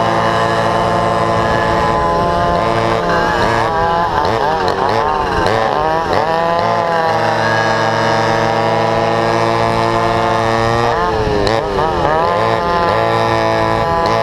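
Vintage racing go-karts' two-stroke engines running flat out in a close pack. A steady high engine note runs under several other engine notes that sweep up and down in pitch, a few seconds in and again about eleven seconds in, as the karts bunch up through the corners.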